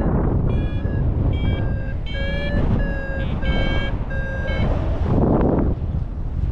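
A paragliding variometer beeping, about two short beeps a second, the tone that signals climbing in rising air, over wind rumble on the microphone. The beeping stops after about four and a half seconds, and a gust of wind hits the microphone near the end.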